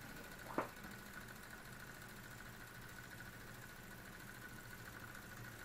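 Small German vertical-boiler model steam engine with an oscillating cylinder, thought to be a Carette of about 1911, running under steam and very quiet: a faint, steady hiss and hum. A brief tap about half a second in.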